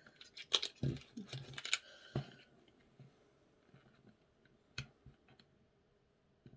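Light clicks and taps from handling an eye pencil as it is pushed back into its cap: several in the first two seconds, then a single sharper click near the end.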